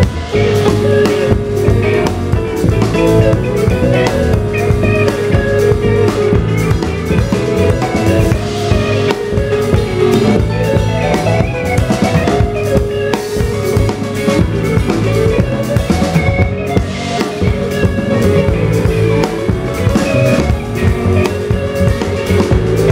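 A small jazz band playing live: an electric guitar picking a line over a busy drum kit with rimshots and an upright bass.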